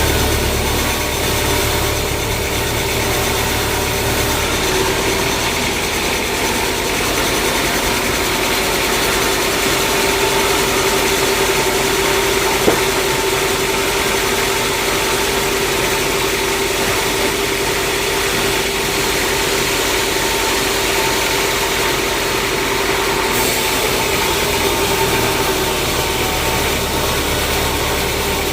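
Sawmill machinery running steadily with a constant hum. A deeper rumble comes in at the start and again near the end, and there is one sharp click about halfway through.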